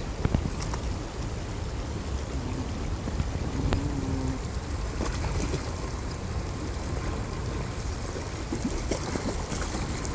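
Shallow river water running over stones, with wading dogs splashing through it, and wind rumbling on the microphone.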